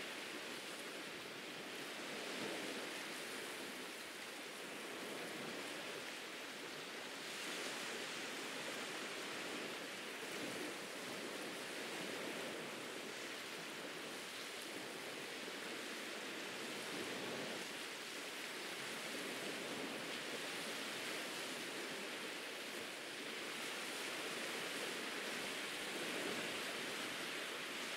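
Ocean surf washing onto a beach: a continuous hiss of moving water that swells and eases every few seconds.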